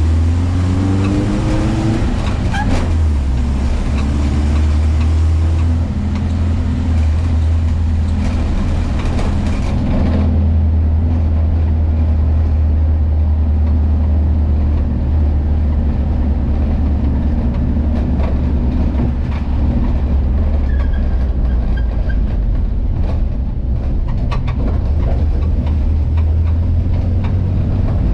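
Volkswagen Kombi van's engine under way, its note rising as it accelerates over the first couple of seconds, then running at a steady low drone while cruising.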